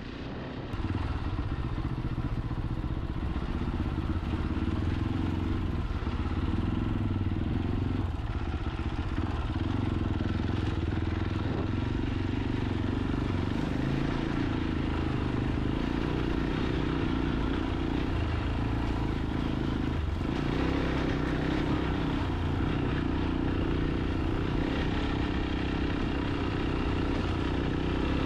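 Fantic Caballero 500 single-cylinder motorcycle engine running steadily while riding, getting louder about a second in.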